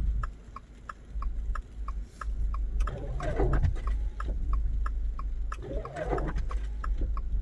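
Cabin noise of a 2025 Subaru Crosstrek driving slowly on a snowy road: a steady low rumble with a fast, even ticking about three to four times a second. A person's voice sounds briefly twice, about three and six seconds in.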